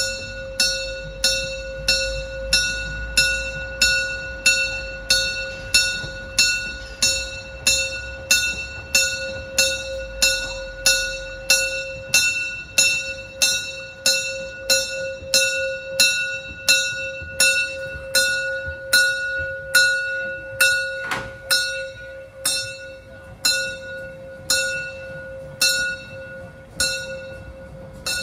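A railway bell rings steadily, one ringing strike a little faster than once a second, while a narrow-gauge steam train crosses a street level crossing. A low rumble from the moving train lies under it for the first twelve seconds or so.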